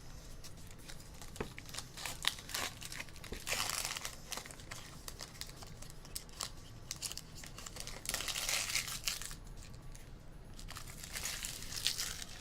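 A trading-card pack's wrapper crinkling and tearing as it is opened by hand, in three spells of a second or so, with light clicks of cards and packaging being handled.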